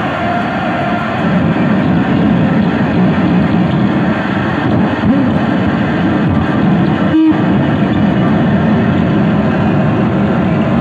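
Harsh noise music from electronics: a loud, dense wall of distorted noise, heaviest in the low range. It drops out briefly about seven seconds in.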